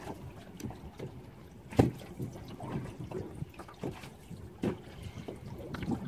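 Small waves lapping and slapping against the hull of a small open boat, in uneven small knocks, with one sharper, louder knock about two seconds in.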